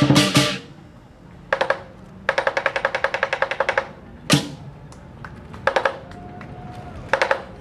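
Lion dance percussion of big drum and cymbals in a sparse passage. It opens with a loud strike, then a short flurry and a quick run of light taps, a single sharp hit about four seconds in, and a few more short flurries of hits near the end.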